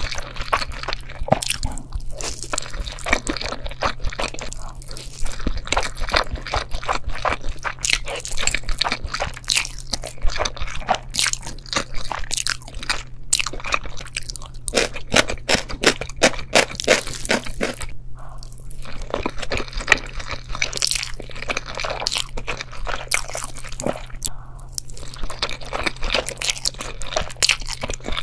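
Continuous close-up crunching, like someone chewing crisp food, a dense run of crackles with two brief lulls in the second half. A steady low hum runs underneath.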